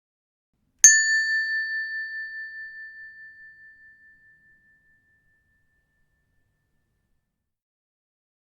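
A small bell struck once, about a second in: a single high ding that rings on with a slow wobble and dies away over about three seconds.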